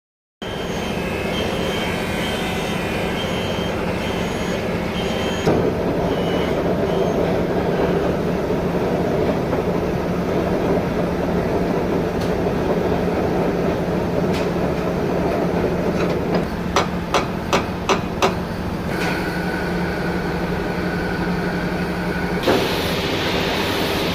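Metal lathe running with a steady machine hum. A quick run of five sharp knocks comes about two-thirds of the way through, and a steady high whine joins for a few seconds near the end.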